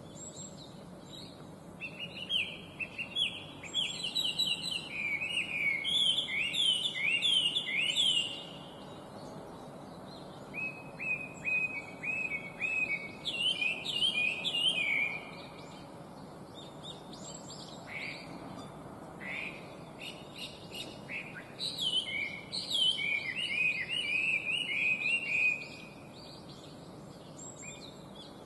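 Chinese hwamei (laughingthrush) singing: three long bouts of loud, rapid, repeated whistled notes that slide in pitch, changing phrase within each bout, with short pauses between bouts.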